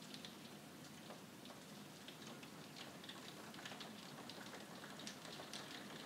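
Light rain falling: a faint steady hiss with scattered drops ticking irregularly.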